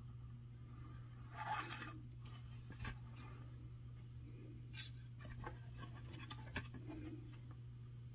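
Faint rustling and scratching of fingers handling thin beading cord while tying a macramé square knot, with a few short scrapes as the cord is pulled through and drawn tight. A steady low hum runs underneath.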